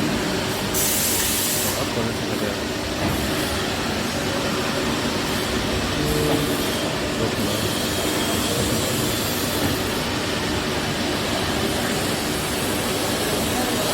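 CNC lathe running: a steady mechanical din with a short burst of hiss about a second in.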